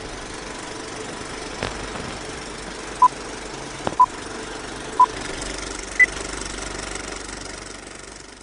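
A film projector runs steadily with faint clicks of film crackle, under a countdown-leader beep: three short, equal beeps a second apart, then a fourth, higher beep a second later. The running noise fades out near the end.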